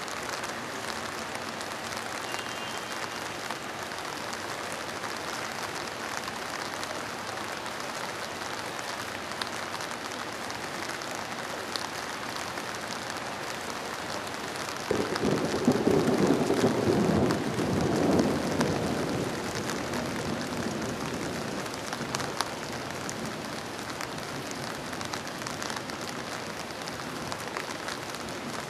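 Steady rain hissing throughout, with a roll of thunder about fifteen seconds in that swells for about five seconds and fades back into the rain.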